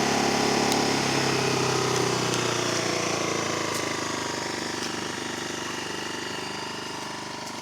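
Ryobi RYi2200 inverter generator running steadily at full speed with its idle switch off and no load, growing steadily fainter with distance.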